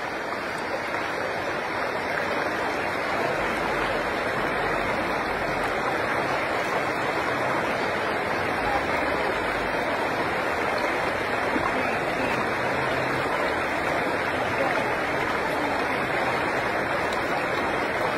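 Shallow river rushing over rocks, a steady, even rush of water.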